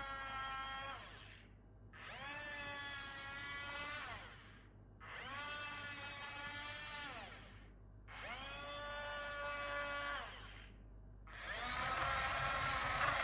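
Small electric gear motors of an LDUMODUW remote-control toy excavator whining in separate runs of about two to three seconds. Each run rises in pitch as the motor spins up and falls as it stops. The last run is louder and rougher.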